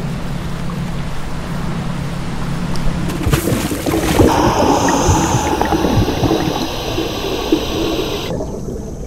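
A steady low motor hum, then from about three seconds in a louder rushing, gurgling water sound.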